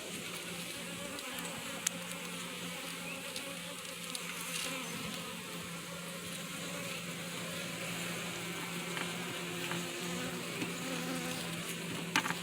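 Honeybees buzzing in a steady hum around an open hive, with a couple of faint clicks.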